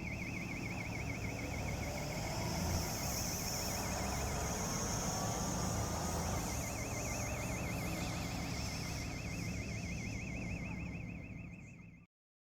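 Bus engine running with a continuous high, fast-warbling electronic alarm tone over it. The tone fades for a few seconds partway through, then comes back, and all the sound cuts off abruptly near the end.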